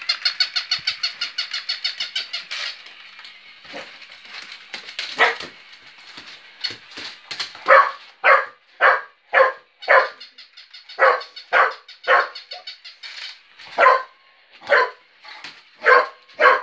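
A battery-powered toy puppy gives a fast, even run of high electronic yaps for the first few seconds. Then a working cocker spaniel barks at it in runs of about two barks a second.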